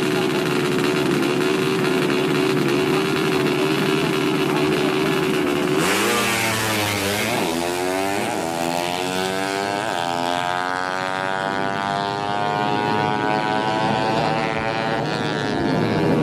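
Tuned 130cc underbone drag-racing motorcycles held at steady high revs on the start line, then launching about six seconds in. Their engine pitch climbs, drops at each gear change and climbs again as they accelerate down the strip.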